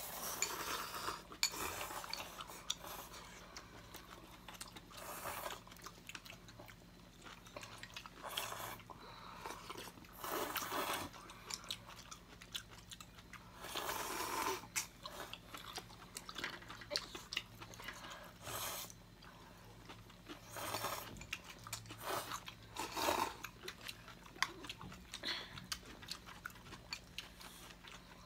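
Several people eating instant noodles: repeated short slurps of noodles and sips of broth from bowls, with chewing in between.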